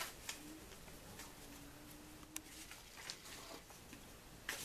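Faint rustling and creasing of a square of origami paper being folded in half by hand, with one small sharp click about two and a half seconds in.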